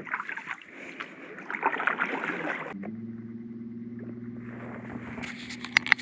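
Small boat getting under way: water and handling noise with small knocks, then about three seconds in a motor starts a steady low hum that holds.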